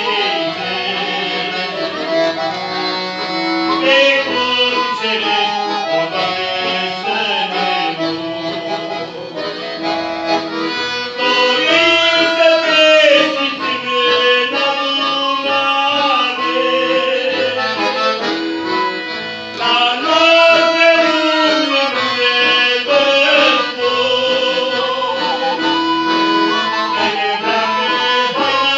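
Accordion playing a tune, with several notes held at once under a moving melody.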